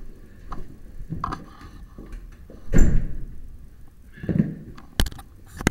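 Rustling and knocking from a handheld camera being moved about, with a loud thud about three seconds in and sharp clicks near the end.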